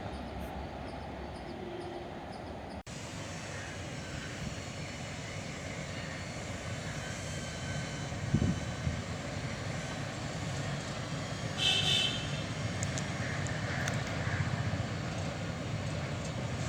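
Indian Railways express train approaching with a rising rumble, and a short horn blast about twelve seconds in.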